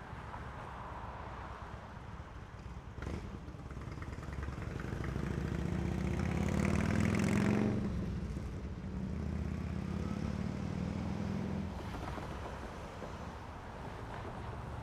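A motor vehicle drives past on a street, its engine and tyre noise growing louder to a peak about halfway through, then fading away, over steady outdoor street background.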